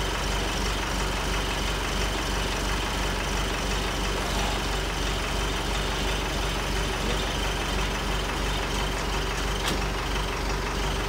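Tractor engine idling steadily, with one sharp click near the end.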